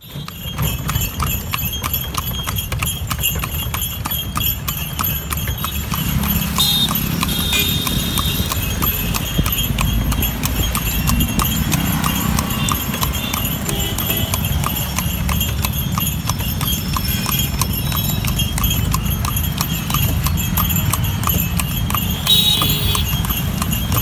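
Horse's hooves clip-clopping steadily on a paved road as it pulls a horse cart, heard from the cart right behind the horse, over the rumble of the cart and street traffic.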